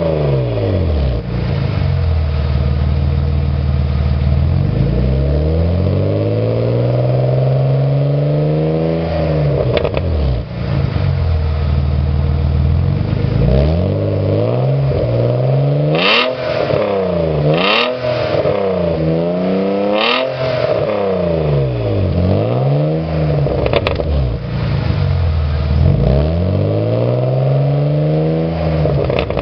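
BMW 328i exhaust, heard at the tailpipe, as the engine is revved up and let fall back to idle again and again, with a run of quick blips in the middle. A few sharp cracks come during the quick blips.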